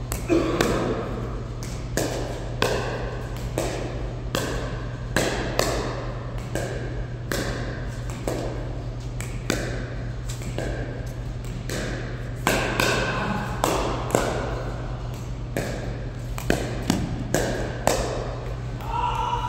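Pickleball paddles striking a plastic pickleball in a warm-up rally: a string of sharp pops at an irregular pace, about one or two a second, over a steady low hum.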